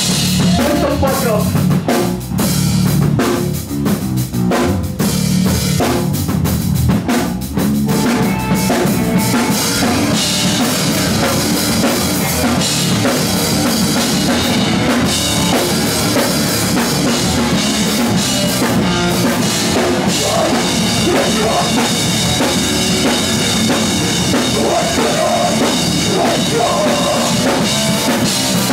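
Rock band playing loud at close range: drum kit, bass guitar and electric guitar. It opens with separate heavy hits, then settles after about eight seconds into a continuous full-band wall of sound.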